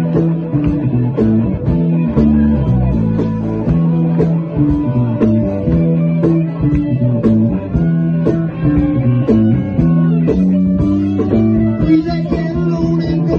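Live band playing a blues jam: electric guitars and bass guitar over a drum kit keeping a steady beat.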